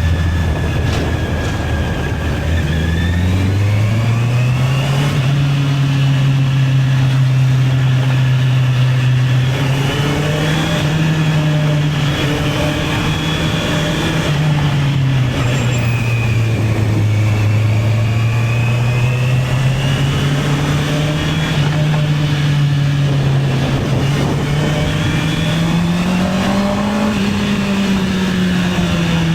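Honda CB650R's inline-four engine running under a rider in traffic: it sits low at first, climbs in revs about three seconds in, rises and eases off through the middle, and revs up once more before falling away near the end.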